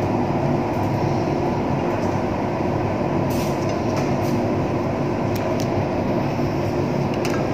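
Steady mechanical hum of an air-conditioning or ventilation unit, even in level throughout, with a few faint light clicks.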